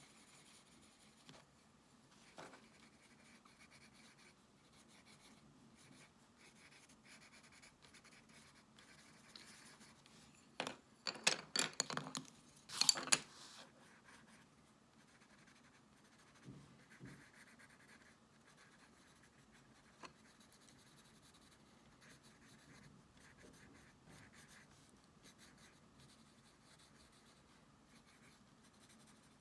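Pencil crayon scratching on sketchbook paper in small shading strokes, faint throughout. A louder flurry of scratchy strokes comes a little over a third of the way in.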